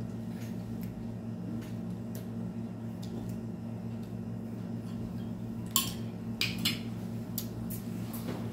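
Light clinks and taps of a plate and dishes while food is eaten by hand, with a few sharper clicks about six seconds in, over a steady low hum.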